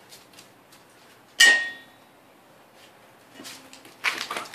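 A stainless steel dog bowl knocked once about a second and a half in, giving a bright metallic clang that rings for about half a second. A quick run of scuffs and clicks follows near the end.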